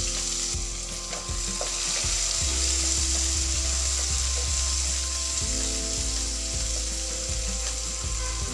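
Chopped onions, green chillies and cumin seeds sizzling in hot oil in a pan, with a spatula scraping and stirring them now and then.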